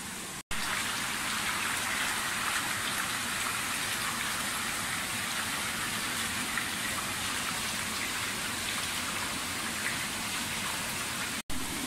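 Water running and splashing steadily in a fish-farm rearing tank, a continuous rush broken by two brief dropouts about half a second in and near the end.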